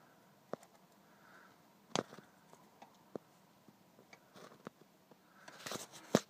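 Faint, scattered clicks and knocks of hand work on parts or tools, with a sharper knock about two seconds in and a quick flurry of clicks near the end.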